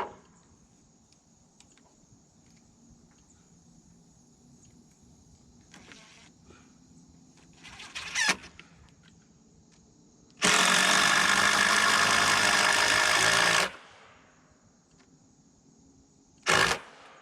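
Power drill driving a screw into a white oak header: a short burst about eight seconds in, then a steady run of about three seconds that starts and stops abruptly, and another short burst near the end. Crickets chirp steadily underneath.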